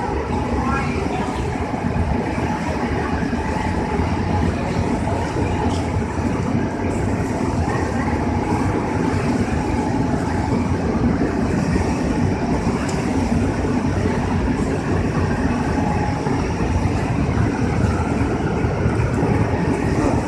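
Cracker (krupuk) drying machine running: a steady, even mechanical rumble and whir with a faint constant tone.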